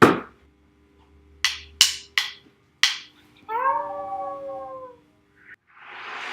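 Foley sound effects: a hit, then four sharp knocks, then a short howl like a dog's, falling slightly in pitch; a rushing noise begins near the end.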